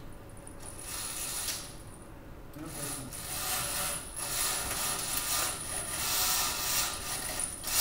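Window shades being pulled down: a short pull about half a second in, then a longer run of repeated pulls from about two and a half seconds on, the cord and shade mechanism rattling and rubbing.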